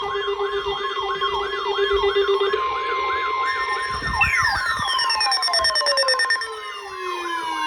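Several electronic siren and alert tones layered together. A warbling siren rises and falls about two and a half times a second. Under it a steady low tone gives way to a steady higher alert tone a couple of seconds in, and from about four seconds in a tone slides steadily down in pitch.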